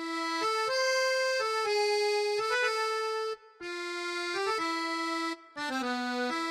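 A reedy, accordion-like melody of held notes stepping up and down, broken by two short pauses.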